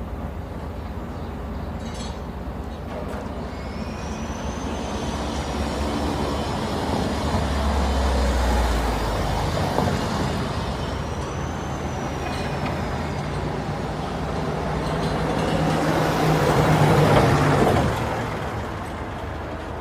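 Road traffic noise: a continuous rumble of heavy vehicles that swells as they pass, about eight seconds in and again near the end. Two brief, faint high whistling tones rise and fall over it.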